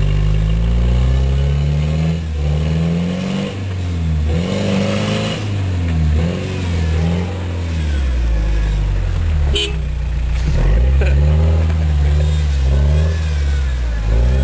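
Toyota Land Cruiser's turbo engine revving up and down under load as it climbs through a ditch, its pitch rising and falling again and again. A single sharp click sounds about two-thirds of the way through.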